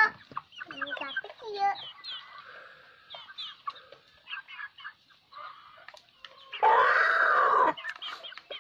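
Young chickens peeping and clucking as they feed, in many short, high chirps that mostly fall in pitch, with light clicks of pecking. One louder, harsher call lasting about a second comes near the end.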